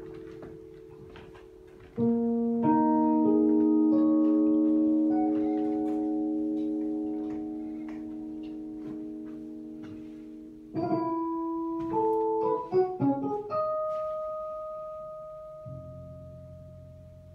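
Improvised keyboard music: a chord struck about two seconds in rings on and slowly fades, a quick run of notes follows around the middle, then a single long held note and a lower chord come in near the end.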